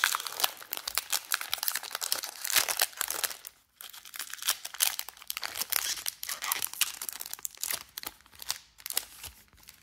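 Foil wrapper of a Topps Chrome trading-card pack crinkling and tearing as it is ripped open by hand. Dense crackling with a short lull about three and a half seconds in, then more crackling that thins out near the end.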